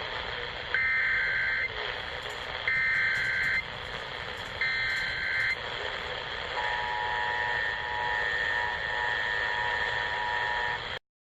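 Emergency Alert System signal over broadcast hiss, the opening of a required monthly test: three loud, buzzy SAME header data bursts, each about a second long and a second apart, then the steady two-tone attention signal, which cuts off suddenly near the end.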